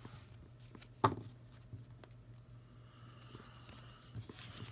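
Trading cards being handled on a tabletop playmat: one sharp tap about a second in, then faint rustling near the end, over a low steady hum.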